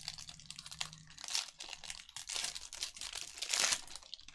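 Foil wrapper of a Bowman Draft Sapphire baseball card pack being torn open and crinkled by hand. The crackling comes in louder surges about a second and a half in, around two and a half seconds, and near the end.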